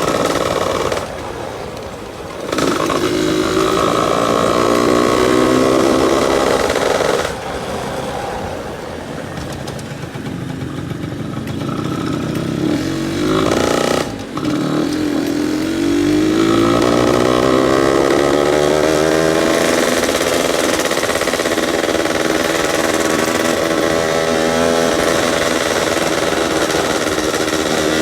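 Yamaha F1ZR's two-stroke single-cylinder engine revved on light throttle, its pitch rising and falling several times with a snoring, growling exhaust note. The revs climb a few seconds in, drop back, dip briefly near the middle, then rise again and hold higher through the last third.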